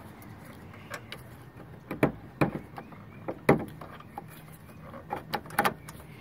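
Plastic oil filter housing of a Fiat 500's 1.4 L engine knocking and scraping against engine-bay parts as it is worked down into place by hand. Irregular short knocks and rubs, the two loudest about two and three and a half seconds in.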